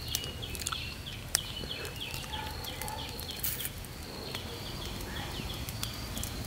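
A short, high chirping call repeated about three times a second, breaking off briefly a little past the middle. Under it a wood fire gives a few sharp crackles.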